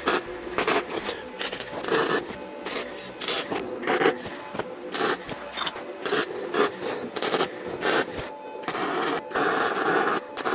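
Welding arc crackling in a string of short tack-weld bursts, each a fraction of a second with brief gaps between, then a longer steady run of the arc near the end.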